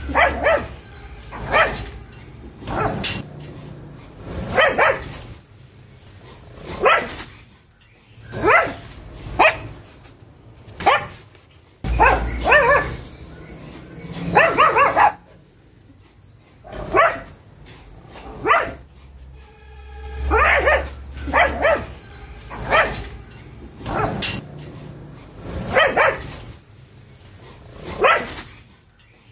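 Pug barking over and over: short sharp barks, sometimes in quick pairs, coming irregularly about every one to two seconds.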